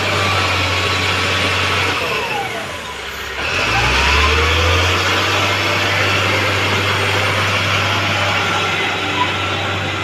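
LiuGong wheel loader's diesel engine running loud and steady, its revs dropping about two seconds in and climbing back up over the next two seconds.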